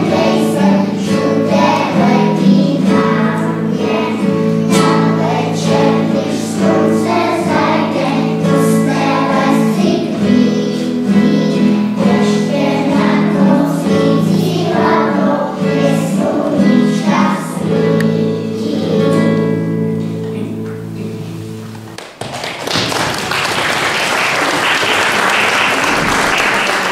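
A group of young children sings a song together with instrumental accompaniment. The song ends a little past twenty seconds and the audience applauds.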